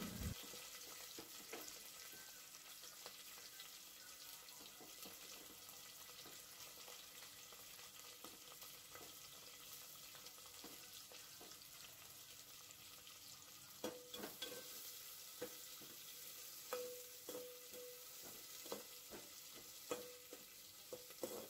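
Chopped onion, green chillies and curry leaves sizzling faintly in hot oil in an aluminium pot. From about two-thirds of the way in, a metal slotted spoon stirs them, clicking and scraping against the pot.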